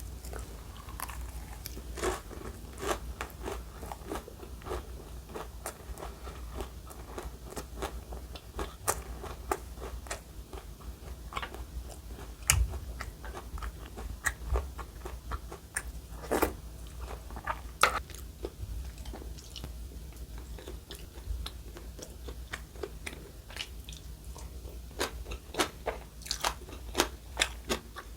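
Close-miked crunching of crisp food: many irregular sharp clicks and crackles, some louder than others, over a steady low hum.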